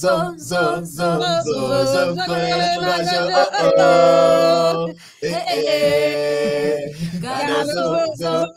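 Singing voice carrying a melody with several long held notes over a steady low backing tone, breaking off briefly about halfway through.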